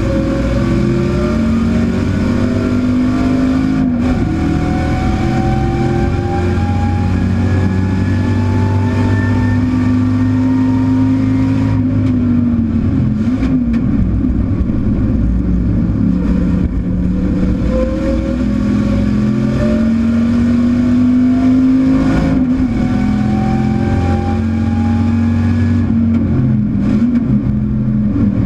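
Chevrolet Camaro race car's V8 engine at full throttle, heard from inside the stripped cabin. The engine note climbs steadily, then drops sharply about four times as the driver shifts or lifts.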